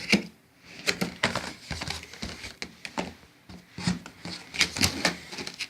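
Cardboard box being opened and its contents handled: irregular knocks, scrapes and rustles of cardboard and packing material.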